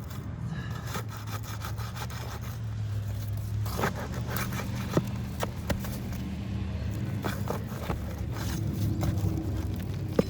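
Scraping and sharp clicks of a tool working at roof shingles, prying them loose to detach them, over a steady low hum.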